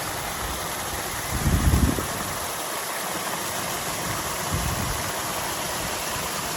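Rushing water: a loud, steady, even hiss that starts and stops abruptly, with brief low rumbles about one and a half seconds in and again about four and a half seconds in.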